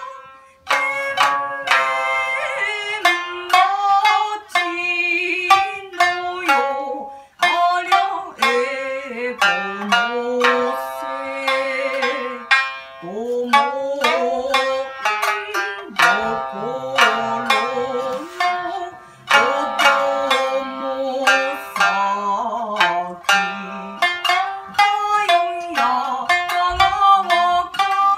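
Shamisen plucked in sharp, quick strokes while a geisha sings over it in held notes that slide up and down in pitch: traditional geisha song with shamisen accompaniment.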